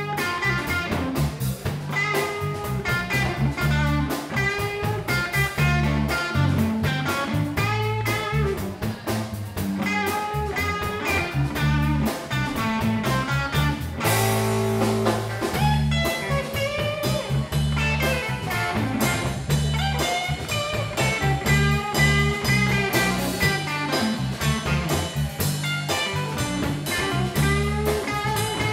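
Live instrumental blues: a trio of electric guitar, electric bass and drum kit, the guitar picking lead lines over a steady bass groove and drums, with a full-band accent about halfway through.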